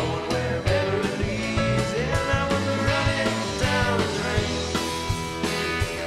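Live rock band playing: electric guitar, bass guitar and drums with a steady beat, and a singer's voice over them.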